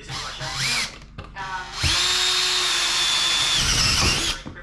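Cordless drill driving into the wall. After a couple of short trigger blips, it runs steadily under load from about two seconds in for roughly two and a half seconds, its pitch wavering just before it stops.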